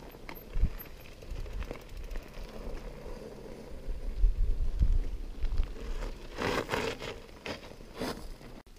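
Mountain bike riding over a rough trail: tyre noise and the bike rattling over the ground, with wind rumbling on the microphone. A few louder rushes of scraping noise come near the end.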